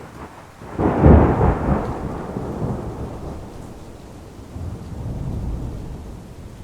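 Thunder from a lightning strike: a sudden crack about a second in that breaks into a long rolling rumble, dies down, then swells again toward the end, with rain hissing underneath.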